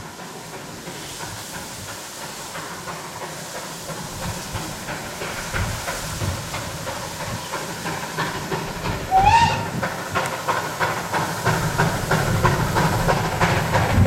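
Ol49 steam locomotive approaching with its train, its exhaust beats and hiss growing steadily louder. About nine seconds in it gives one short, rising whistle blast.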